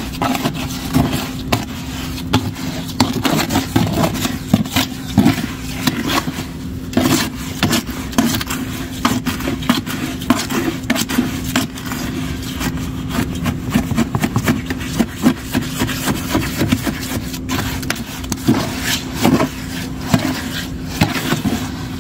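Spatula scraping and knocking around the inside of a bucket of wet concrete mix in quick, irregular strokes, over a steady low hum.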